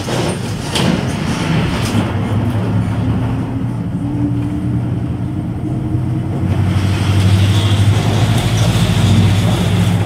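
MAN D0834 four-cylinder inline diesel engine of a Volkswagen 17-230 OD Euro V bus running under way with a steady low drone. Its note rises slightly in the middle, and it grows louder and fuller about six and a half seconds in, with a couple of short knocks near the start.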